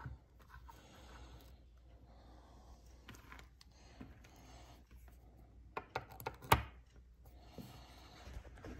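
Faint handling sounds, then a few clicks about six seconds in, the loudest a single sharp click, as a USB-C charging cable is plugged into a Sofirn HS10 mini headlamp's charging port.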